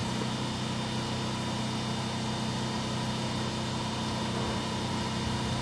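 A steady, unchanging machine hum with an even hiss underneath.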